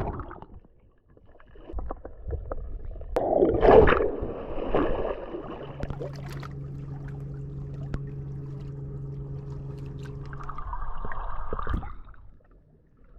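An engine hum holding one steady pitch for about five seconds, after a short burst of rushing noise.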